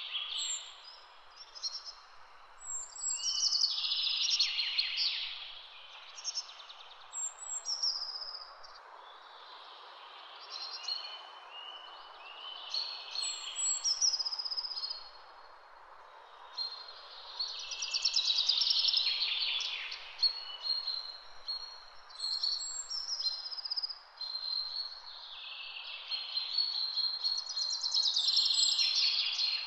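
Birds singing: short, high chirps and trills in repeated phrases every second or two, over a steady soft hiss.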